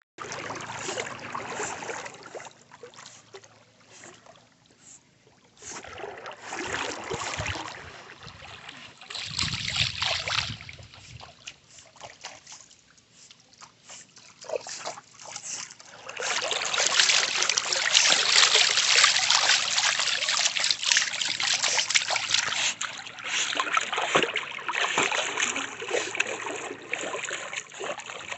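Pool water splashing, trickling and lapping as a golden retriever paddles through it. The sound comes and goes, with quieter stretches early on, and is loudest and busiest over the second half.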